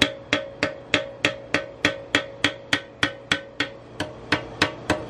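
Steady hammering, about three blows a second, each with a short metallic ring: a hammer tapping a cracked aluminum fuel tank to push the crack closed for repair.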